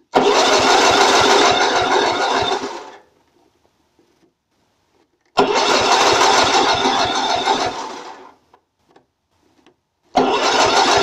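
Electric starter cranking an 8 HP Briggs & Stratton lawn tractor engine in three bursts of about three seconds each, the third beginning near the end; each burst fades as the key is released. The engine turns over but does not fire, because no carburetor is fitted.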